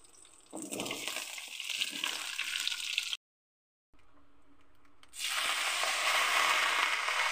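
Sliced raw jackfruit tipped from a bowl into a wok of hot oil, the pieces sliding in and the oil sizzling. After a short silence, water is poured from a steel vessel into the wok, a steady splashing gush over the jackfruit.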